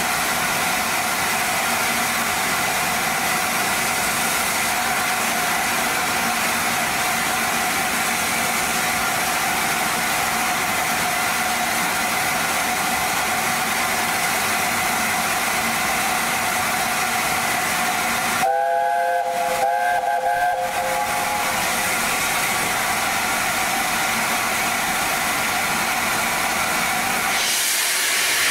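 LNER A4 steam locomotive 4498 standing with steam hissing steadily. About two-thirds of the way through, its chime whistle sounds for about two seconds. Near the end, the cylinder drain cocks open with a louder rush of steam.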